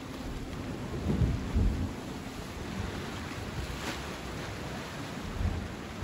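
Steady rush of sea surf, with a few low thumps of wind buffeting the microphone about a second in and again near the end.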